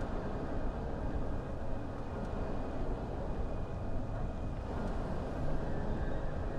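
Mercedes-AMG GLE 53 Hybrid Coupe, with its 3.0-litre turbocharged straight-six, driving at speed: a steady rush of engine and road noise that swells slightly a little past the middle.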